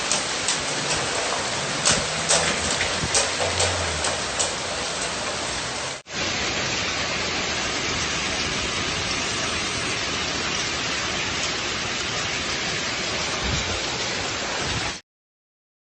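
Heavy rain: a steady hiss with sharp drop impacts for the first six seconds, then after an abrupt break a smoother, even downpour. It stops dead about a second before the end.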